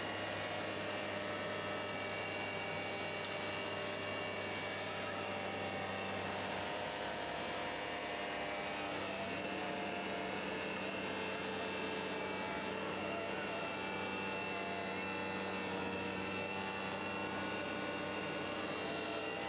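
CAT CT660 hydrovac truck's vacuum system and engine running steadily while the suction hose draws soil and water out of the excavation. It is a constant droning hum made of several steady tones, and its low note shifts slightly around seven to nine seconds in.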